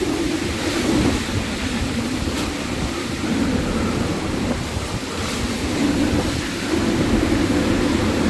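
Hurricane eyewall wind blowing hard in gusts, a steady dense rush with heavy buffeting on the microphone; it eases slightly in the middle and swells louder again in the last few seconds.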